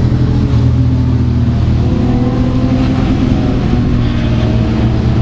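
An engine running steadily: a loud, even low drone whose pitch drifts slowly, with no passing swells.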